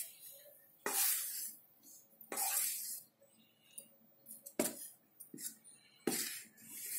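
Rice flour poured in several short pours into a steel pot of boiling water, each pour a soft hiss.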